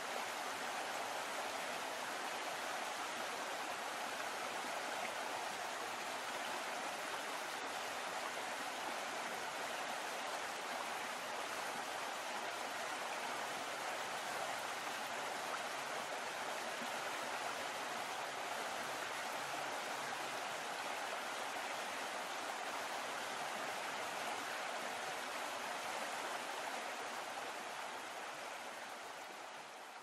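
Steady rushing and splashing of water churned up behind a moving boat, fading out over the last few seconds.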